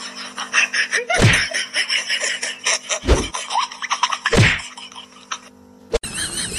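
Dull thumps of objects landing on a wooden floor, three of them one to two seconds apart, with small clicks and a low steady hum between them.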